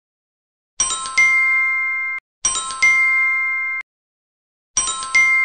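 Chime sound effect played three times, each a quick cluster of bright dings that settles into a ringing chord lasting about a second and then cuts off abruptly.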